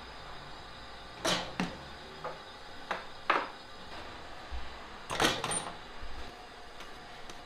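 Irregular clanks and thuds as dough pieces are dropped into and lifted from the metal pans of a balance scale and set down on a floured worktable. There are about six sharp knocks, the loudest about three and five seconds in.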